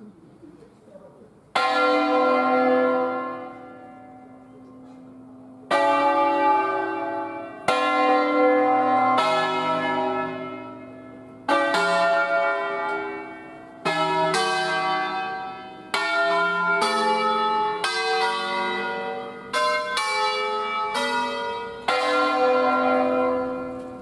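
Church bells of an eight-bell ring in C, cast by Luigi Cavadini in 1925, rung by hand: single bells swing and strike one after another, a second or a few seconds apart, each a different note with a long ringing hum. Strikes come thicker toward the middle, where some overlap.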